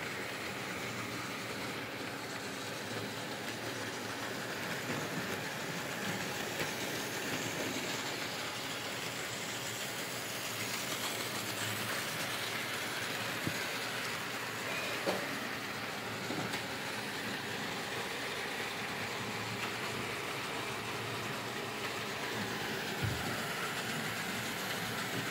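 OO scale model trains running around the track: a steady whirr and rattle of the electric locomotives and their wheels on the rails, with a few faint clicks.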